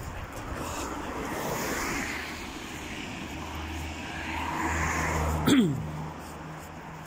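Cars passing on the road beside the pavement, one swelling up about a second and a half in and another about five seconds in. A sudden loud knock with a short falling tone comes about five and a half seconds in.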